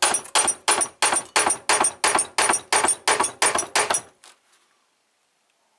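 Rubber mallet striking an aluminium motorcycle engine crankcase in a steady series of sharp knocks, about three a second, that stop about four seconds in. The blows are tapping the crankcase halves apart.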